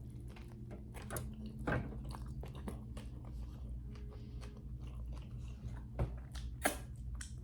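A person chewing and biting food close to the microphone, with many short crunching clicks.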